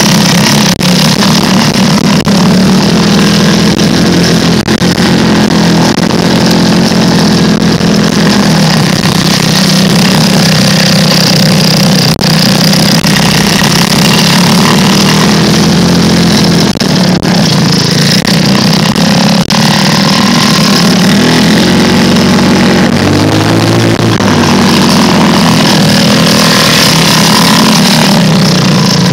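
Small off-road vehicle engine running loud and steady as it drives a rough trail, its pitch wavering as the throttle changes a little past the middle.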